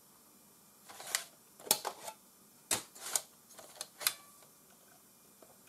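Irregular sharp clicks and clacks, some in quick pairs, over about three seconds, starting about a second in.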